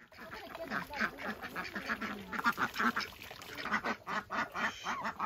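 A flock of domestic ducks quacking, a rapid, irregular run of short overlapping calls from several birds at once.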